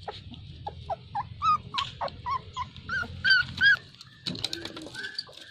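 Puppy whimpering and yipping: a quick run of short, high-pitched cries, two or three a second, loudest just after three seconds in. They stop near four seconds in, and a few sharp clicks follow.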